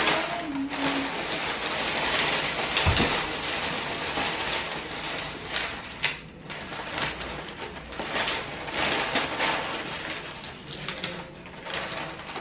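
Corn tortilla chips poured onto a wooden plate: a dense, continuous crackling and clattering as the dry chips tumble and land on each other, with one low thump about three seconds in.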